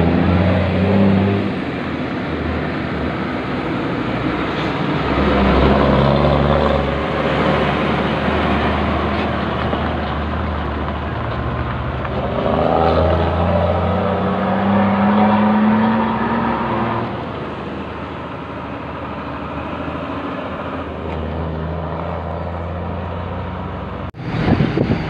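Diesel engine of a Fuso tronton dump truck running as the truck drives close past, its pitch rising as it pulls in the middle, then quieter near the end as it moves off.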